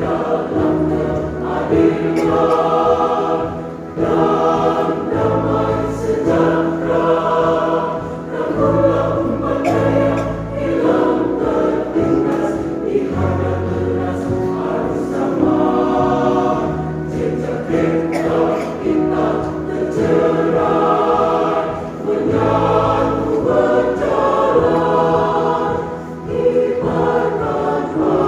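A church choir sings a sacred song in several-part harmony, with sustained chords and brief breaks between phrases about every four seconds.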